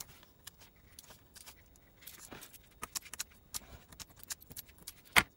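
Soft handling sounds of paper crafting: scattered light taps, clicks and paper rustles as small foam adhesive dots are picked up with a pick tool and pressed onto layered cardstock. One sharper click near the end.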